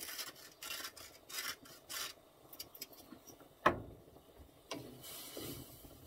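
Wooden salt grinder being twisted over a pan, a crunching rasp in short strokes about two a second. A sharp knock comes a little before four seconds in, then the pan of mushroom sauce sizzles on the gas burner with a steady hiss.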